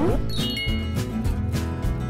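Short musical sting: bright chime tones that come in about half a second in and hold, over background music with a low beat.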